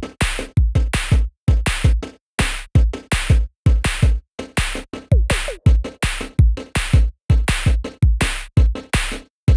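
Electronic music with a hard drum-machine beat, about two hits a second, each carrying a deep bass thump that drops in pitch.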